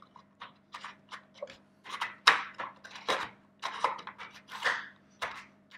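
Irregular plastic clicks, taps and scrapes of hands working at a ceiling pendant light fitting.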